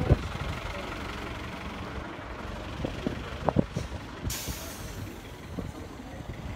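Bus engine running close by amid street traffic, with a short sharp hiss of air brakes about four seconds in that fades away. A few sharp knocks near the start and about three and a half seconds in.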